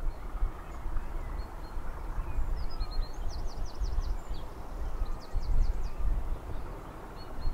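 Small birds singing outdoors, with a quick run of high chirps about three seconds in and another short burst later, over a gusty low rumble of wind on the microphone.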